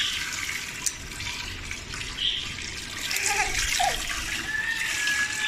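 Milk pouring from a carton in a steady stream into a large aluminium pot already holding milk. There is a sharp click a little under a second in.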